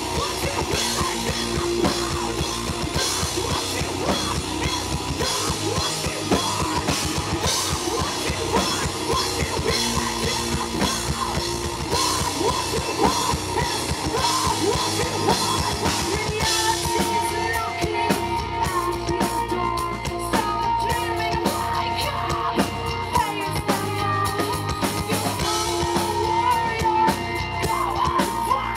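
Metal band playing live: distorted electric guitars, bass and heavy drumming with cymbals. About halfway through the cymbals thin out and long held notes come forward.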